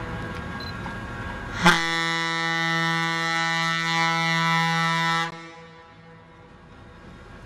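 Approaching train sounding one long horn blast. It starts sharply about two seconds in and holds a steady pitch for about three and a half seconds before cutting off.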